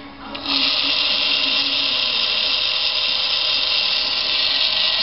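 Valpes ER Plus electric valve actuator's motor and gear train start about half a second in, then run with a loud, steady, high-pitched whine as the output shaft and position indicator turn.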